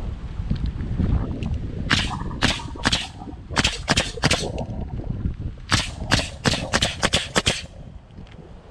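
A run of about fifteen sharp knocks in three quick groups, each a hard strike like a hammer or nailer on the roof surface.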